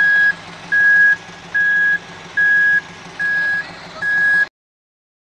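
Reversing-type alarm beeping: six even single-tone beeps, about one every 0.8 s, over a low steady engine hum. All sound cuts off abruptly about four and a half seconds in.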